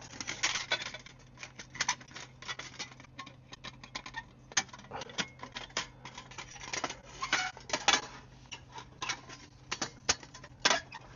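Thin coated-steel panels of a folding camp stove clicking and clanking as it is unfolded and its tabs are hooked into their slots, a quick irregular run of light metal knocks and rattles.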